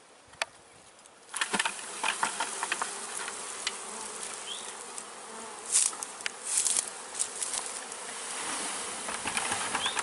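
Honeybee swarm buzzing, which swells suddenly about a second in as the cluster is knocked off its branch into a plastic bucket. Scattered knocks and rustles run through it.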